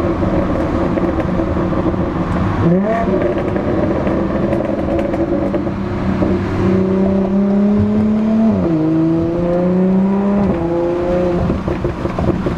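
Supercharged 3.0-litre V6 of a tuned 2016 Audi SQ5 with aftermarket downpipes and exhaust, heard from inside the cabin. The engine note jumps up sharply about three seconds in, then climbs steadily under acceleration, with gear upshifts dropping the pitch about nine seconds in and again about two seconds later.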